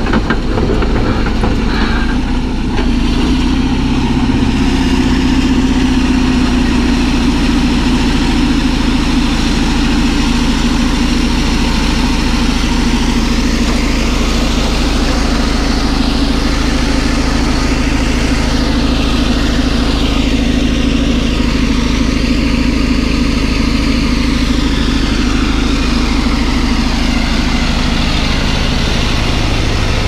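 CAT D11 bulldozer's diesel engine running steadily and loudly under load as the blade pushes a pile of clay and rock.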